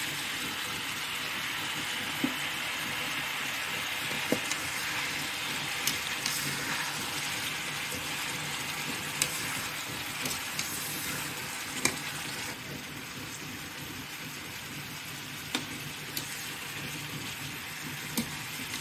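Lamb pieces and chopped onion sizzling in hot oil in a pot, stirred with a spoon that knocks against the pot now and then in short clicks. The sizzle eases slightly about two-thirds of the way through.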